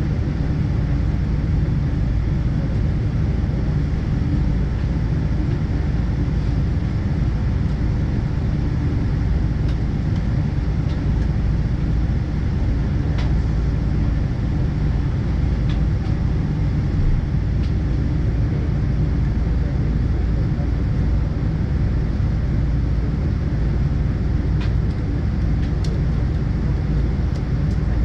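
Steady low rumble with an airy hiss inside the cabin of a Boeing 777-200ER airliner on the ground, with a few faint clicks.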